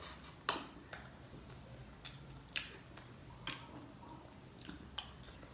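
Faint, irregular sharp clicks of eating at close range, about eight in all.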